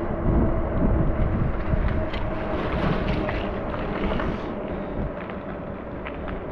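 Wind buffeting the microphone and road rumble while riding an e-bike, with a thin steady tone throughout and a few scattered small ticks.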